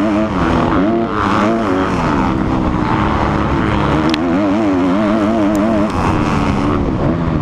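Dirt bike engine at race speed, its pitch rising and falling continually with the throttle, heard from a helmet-mounted camera with wind noise over the microphone.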